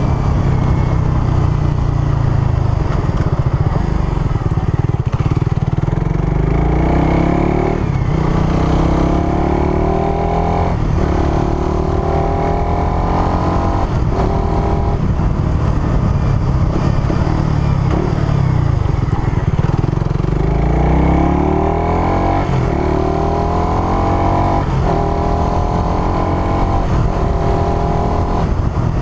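Suzuki Raider R150 Fi's single-cylinder four-stroke engine on its stock exhaust, heard onboard while riding. It revs up through the gears in several pulls, with a brief break at each gear change, kept below about 6000 rpm while the engine is being broken in.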